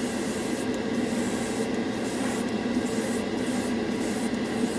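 Dual-action airbrush spraying paint in short bursts of hiss, over the steady hum of a spray booth fan.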